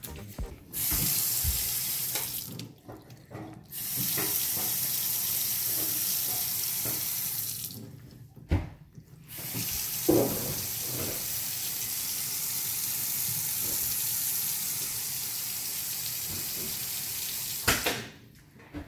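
Newly installed Moen 7594ESRS electronic kitchen faucet running water into the sink during its first test, switched on and off three times: a short run of about two seconds, then about four seconds, then about eight seconds, each stopping abruptly. Two short knocks sound, one in the pause and one just as the last run ends.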